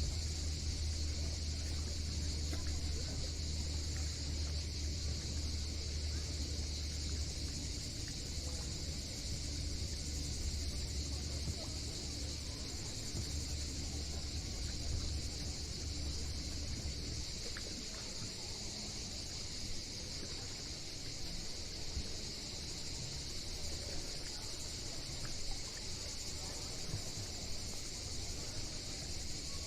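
Cicadas singing in a steady, unbroken high chorus over a low rumble that eases off about halfway through.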